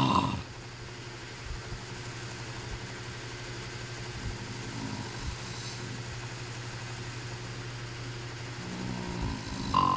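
A man snoring in his sleep: one loud, droning snore ends just as the stretch begins and the next builds up near the end, about ten seconds apart, with a steady low hum between them.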